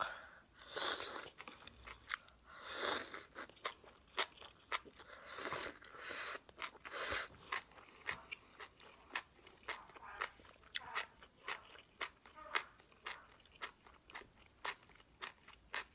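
Close-miked eating of enoki mushrooms and noodles from a spicy hotpot. A few short hissing slurps in the first half give way to wet chewing, crunching and mouth clicks.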